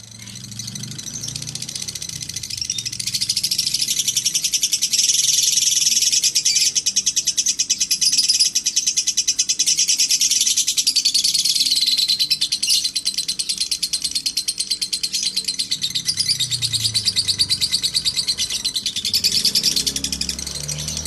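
Lovebird giving a long 'ngekek' chatter, a fast, unbroken string of high chirps. It builds over the first few seconds, then holds with hardly a break. This long ngekek is the song prized in fighter lovebirds.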